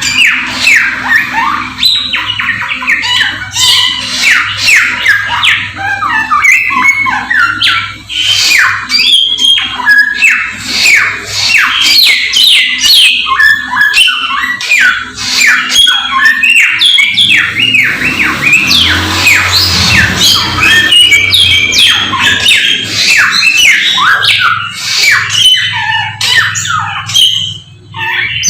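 A Samyong songbird singing loudly and without pause in full 'gacor' song: a fast string of sharp, downward-sweeping notes, several a second.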